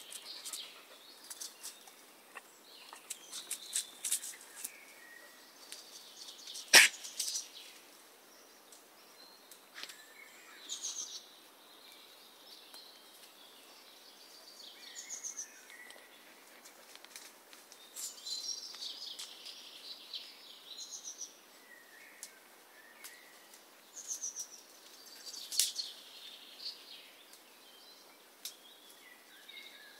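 Woodland birds singing in short scattered chirping phrases, with a few sharp clicks among them, the loudest about a quarter of the way through.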